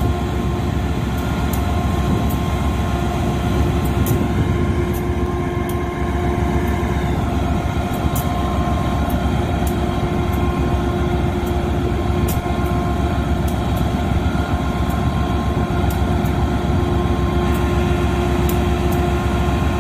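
A diesel locomotive running while standing still: a steady, loud engine rumble with a constant humming whine over it.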